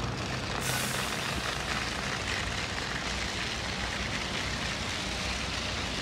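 Steady engine rumble from machinery or traffic, with a hiss that grows brighter about half a second in.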